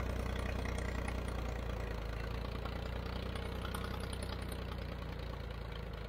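Old Ford 4500 backhoe's diesel engine running steadily, freshly revived after sitting unused for years.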